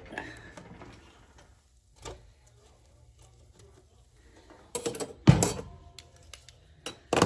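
An air fryer being closed up and set going again: scattered clicks, a heavy thump a little past five seconds in, and a sharp clack near the end.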